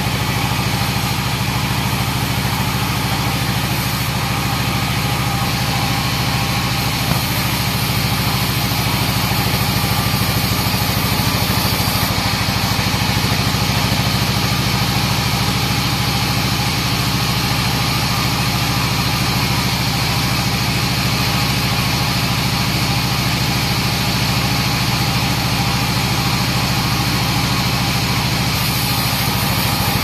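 A 42-inch bandsaw mill running steadily while a teak log is sawn lengthwise on its carriage.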